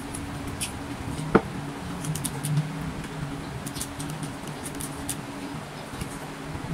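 A man eating rice by hand, chewing with small wet clicks and smacks, with one sharp click about a second and a half in, over a steady low hum.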